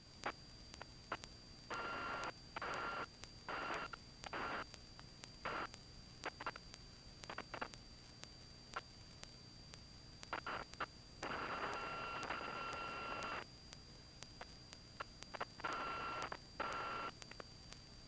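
Faint static hiss on the aircraft's intercom and radio audio line, cutting in and out in many short bursts. Some bursts carry a thin steady tone, and the longest lasts about two seconds near the middle. A faint steady electrical whine and light regular ticking run underneath.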